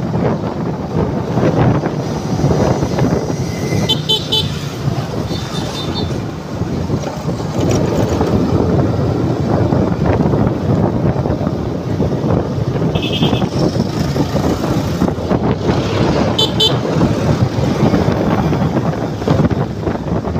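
Suzuki underbone motorcycle riding through town traffic: steady wind and engine noise with passing traffic, broken several times by short high-pitched horn beeps.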